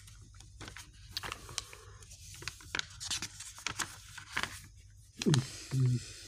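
Pages of a worn paperback book being riffled and turned by hand: a run of crisp papery rustles and flicks. Near the end a person's voice makes two short murmurs, the loudest sounds here.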